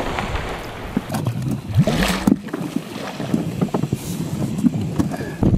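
Wind buffeting the microphone over open lake water, with water splashing and lapping around the surfaced sediment corer; a couple of brief louder gusts or splashes along the way.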